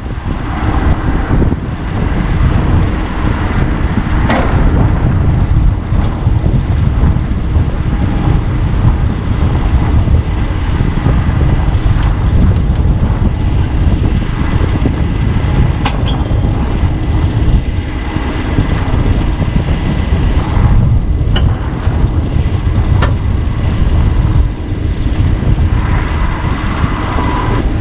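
A vehicle engine running with a steady low rumble and wind buffeting the microphone, and a few sharp clicks scattered through.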